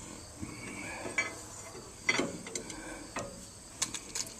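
Scattered metal clicks and clunks, about one a second, as the Case 800 tractor engine is turned over and its fan blade moves: the sign that the seized engine is no longer stuck.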